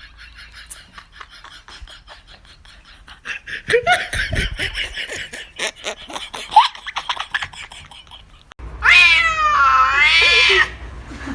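Domestic cat meowing: about nine seconds in comes a loud, drawn-out yowl whose pitch dips and rises. Before it there is rapid clicking and a few short scattered sounds.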